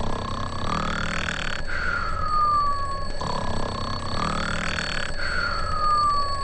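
Cartoon snoring sound effect: a rough snore on each in-breath, then a whistle on the out-breath that falls in pitch. The cycle repeats twice, about every three and a half seconds.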